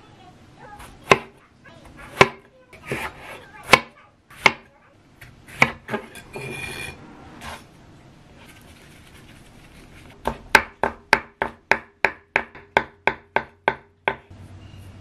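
Chef's knife striking a wooden cutting board: several separate cuts, then from about ten seconds in about a dozen quick, even chops, around three a second, as rolled-up shiso leaves are sliced finely.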